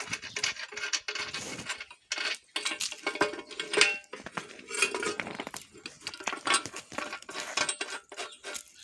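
Irregular clinking and clattering of metal parts being handled: many short knocks and clinks, with no motor running.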